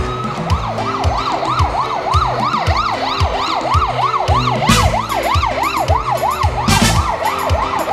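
Emergency-vehicle siren in a fast warble, sweeping up and down about three times a second, over background music with a steady beat.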